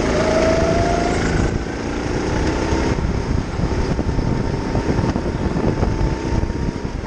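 Go-kart running flat out around an indoor track, heard from the driver's seat. A high whine rises during the first second and a half, then the sound turns to an uneven, choppy rumble with a thin steady high tone through the middle.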